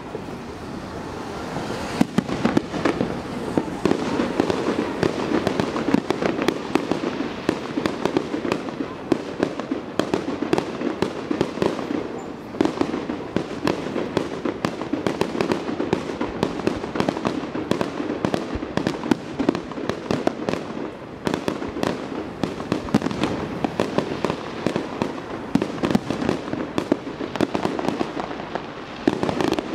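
Aerial fireworks display: a dense barrage of shells bursting, many sharp bangs in quick succession, overlapping with few pauses.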